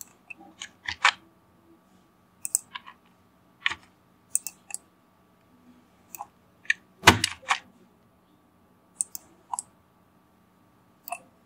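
Sparse, irregular computer keyboard keystrokes and mouse clicks, with a denser cluster of clicks about seven seconds in, over a faint steady electrical hum.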